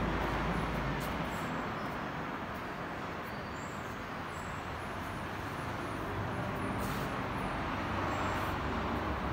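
Steady low rumble and hiss of vehicle noise, with a few faint clicks.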